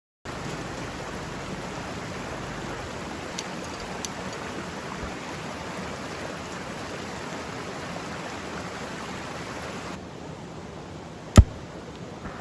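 Tempura deep-frying in hot oil over a campfire: a steady, even sizzling hiss. It thins suddenly near the end, followed by one loud sharp click.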